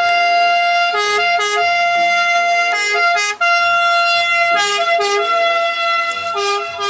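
Italian ambulance's two-tone siren sounding loudly, switching back and forth between a high and a low note, held mostly on the high note.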